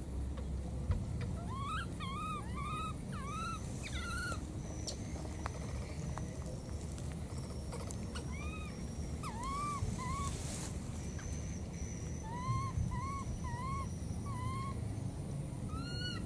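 Baby monkey calling with short, arched whistling peeps in runs of three to five, with pauses of a few seconds between runs.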